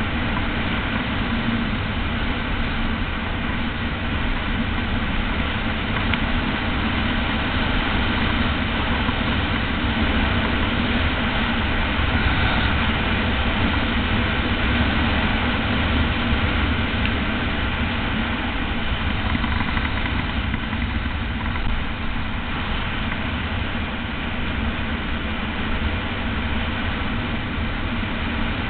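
Steady rush and rumble of wind buffeting the microphone of a bicycle-mounted camera on a fast downhill run, mixed with the tyres rolling over coarse, patched asphalt.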